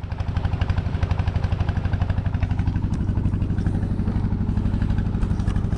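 Boat engine running steadily under way, with a fast, even chugging pulse.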